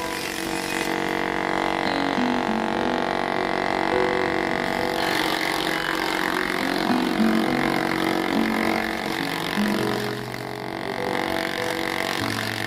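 Background music with a stepping melody over a steady drone, mixed with the running of a small electric chaff cutter as green fodder is fed in and chopped.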